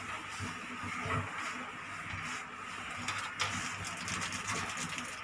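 Light plastic clicks and handling noises as spare drone propellers and plastic packaging are moved about on a table, over a steady background hum.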